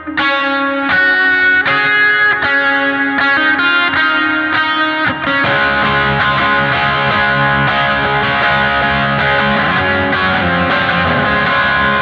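Electric guitar played through a NUX MG-30 multi-effects unit: single picked notes ringing out one after another, then from about five seconds in a thicker, fuller sound with held chords.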